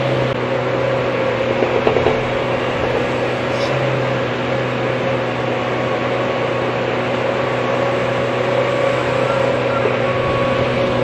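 Hyundai hydraulic excavator's diesel engine running at a steady working speed, a constant drone heard from the operator's cab while the machine digs.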